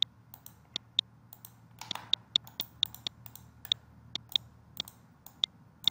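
Computer mouse clicking, about twenty short sharp clicks at an uneven pace of roughly three a second, as dimension points are picked in CAD software.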